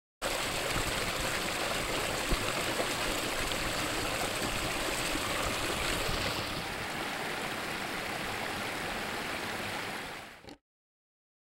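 Mountain creek rushing and splashing down granite slabs in a steady rush of water. It turns a little softer about two thirds of the way in and cuts off abruptly near the end.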